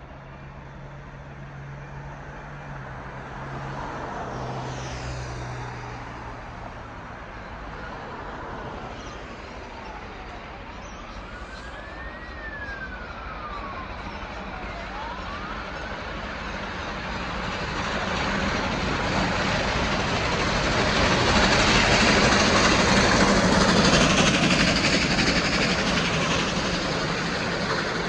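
A siren wails faintly, rising and falling over several seconds near the middle. Then the steam train, double-headed by R-class Hudson locomotives R711 and R761, builds from a distant rumble to a loud rush of noise as it approaches and runs into the station.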